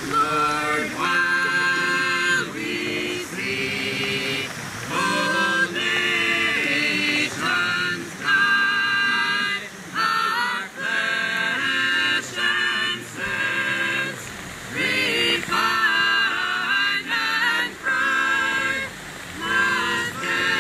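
Small mixed group of men and women singing together in long held chords, with short breaks between phrases.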